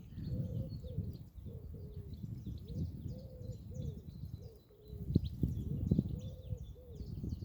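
Flowing water rushing, with small birds chirping rapidly overhead and a low cooing call repeating about twice a second. A few louder knocks or splashes come about five to six seconds in.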